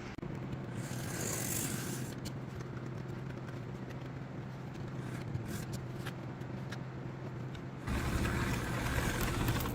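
HO scale model diesel locomotive running on the track: a steady electric motor hum with wheels rolling over the rails and scattered clicks, getting louder about eight seconds in.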